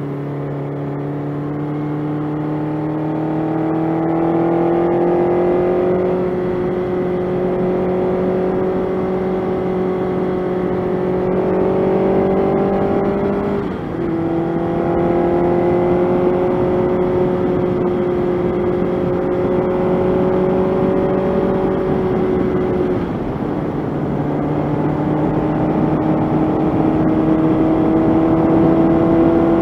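1985 Honda CB700SC Nighthawk's inline-four engine running under way, its pitch climbing slowly as it pulls. The pitch steps down sharply twice, about 14 seconds in and again about 23 seconds in, then climbs again.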